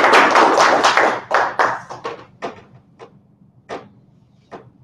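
Small audience applauding, thinning out about a second in to a few scattered claps.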